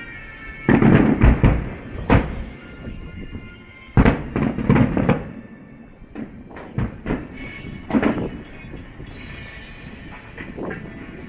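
Fireworks bursting: clusters of sharp bangs and booms, some followed by crackling, over music playing in the background.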